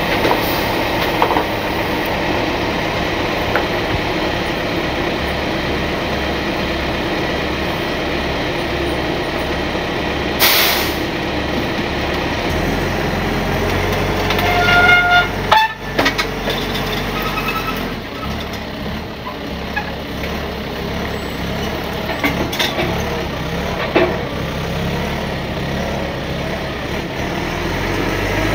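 Diesel engines of a telehandler and a rollback tow truck running while the telehandler drags a burned chassis off the tilted bed. There is a short burst of air hiss about ten seconds in, and around halfway a brief high squeal and a sharp metal bang as the load shifts.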